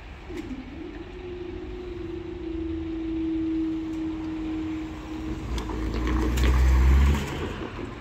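Level crossing barrier mechanism humming as the booms lift: a steady hum that starts with a brief dip in pitch and dies away about five seconds later. A louder low rumble builds near the end.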